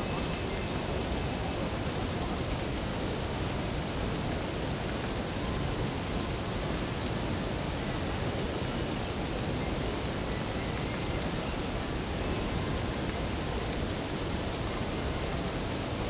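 Steady rush of a large waterfall and the river below it: an even, unbroken noise.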